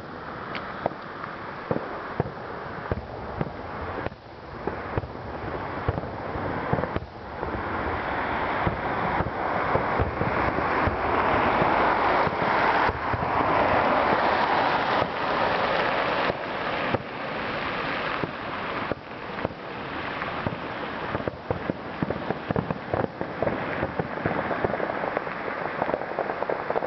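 Aerial fireworks display: many shell bursts banging in quick, irregular succession over a dense crackling hiss that builds up in the middle and eases off toward the end.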